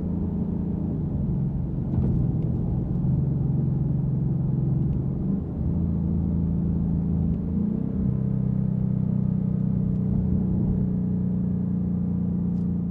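Exhaust drone of a 2024 Ford Mustang GT's 5.0 L V8 through a MagnaFlow Competition Series cat-back with quad split rear exit, heard inside the cabin while cruising in Track mode. A steady low drone that eases briefly about halfway through.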